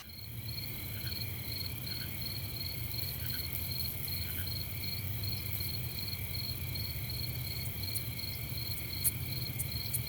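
Crickets chirping in a steady, evenly pulsing chorus, over a low steady hum.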